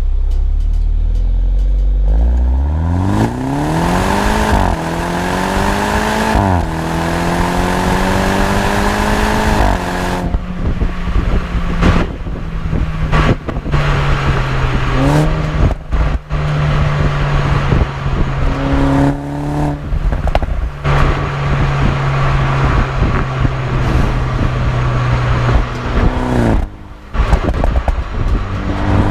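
BMW 125i's B48 turbocharged four-cylinder engine through a full M140i cat-back exhaust, pulling hard from a low rumble with the pitch climbing and dropping at upshifts about 4.5 and 6.5 seconds in. It then holds a steady drone broken by short sharp cracks, with small blips. Near the end the pitch falls off and the engine picks up again.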